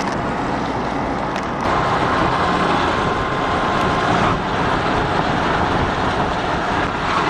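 Steady road and engine noise of a moving vehicle, a little louder from about two seconds in.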